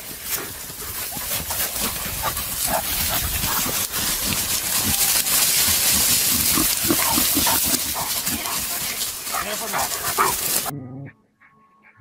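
Dog barking in short bursts among running wild boars, over a loud rough rushing noise. The noise cuts off abruptly near the end.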